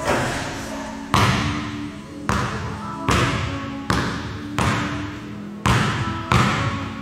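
Basketball dribbled on a gym floor, about eight bounces at an uneven pace, each echoing through the hall.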